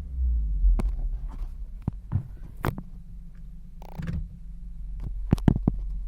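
Low, steady hum from an Acura RDX, with a scatter of short sharp clicks and knocks over it.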